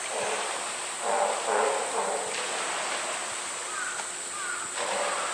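Crows cawing in short, repeated calls, with a couple of brief high chirps from another bird near the end, over a steady high-pitched drone.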